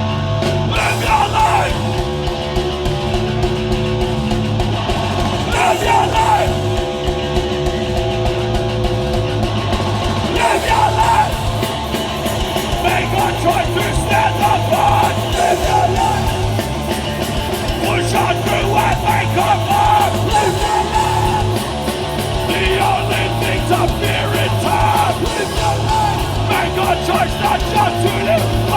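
Loud hardcore punk music with distorted electric guitars, pounding drums and shouted vocals.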